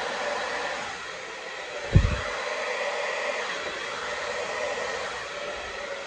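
Handheld hair dryer running steadily, blowing acrylic pour paint across a canvas. A single low thump sounds about two seconds in.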